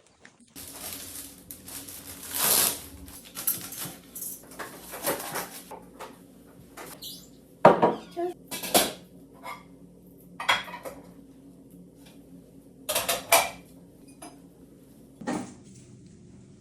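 Objects being handled: irregular clinks, knocks and rustles over a faint steady hum, with sharper knocks about a third and halfway through.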